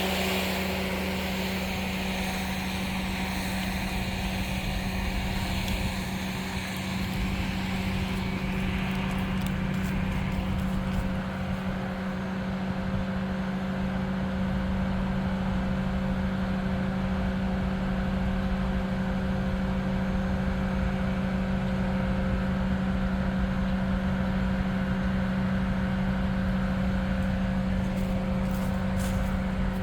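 An engine running steadily at a constant pitch, with more high-pitched noise in the first few seconds that then fades.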